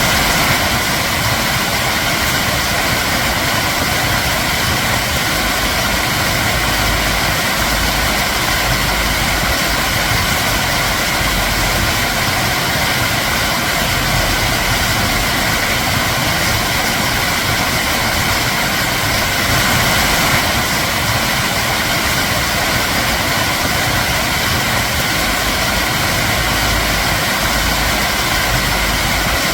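Flowing water rushing steadily, a constant even splashing with no change.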